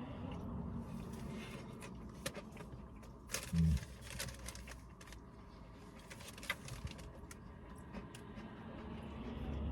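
A person eating a pie with a crispy crust: scattered small clicks and crackles of chewing and handling. There is one louder low thump about three and a half seconds in.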